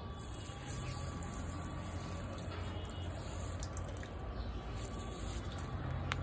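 Water spraying from a hose's plastic trigger spray nozzle onto a chicken's foot to rinse it: a steady hiss and splatter that starts just after the beginning and stops a little over five seconds in.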